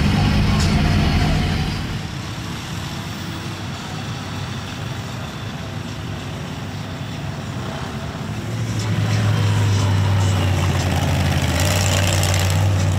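Mud truck engine running, a deep steady drone that eases off about two seconds in and comes back louder about eight seconds in.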